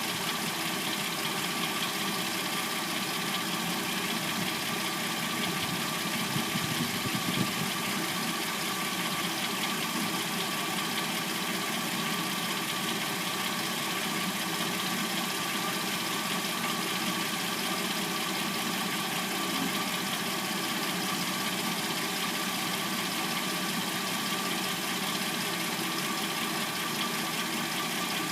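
Hyundai Sonata replacement engine idling warm and steady, with a light clackety noise that the owner assumes to be the timing chain. A few louder knocks sound around six to seven seconds in.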